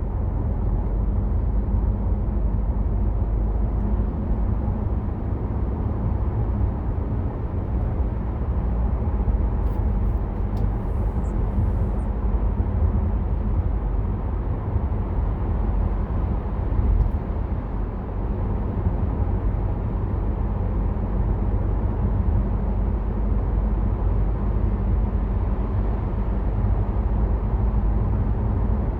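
Steady in-car road and engine rumble of a BMW F07 5 Series GT 20d, a four-cylinder diesel, cruising along the road.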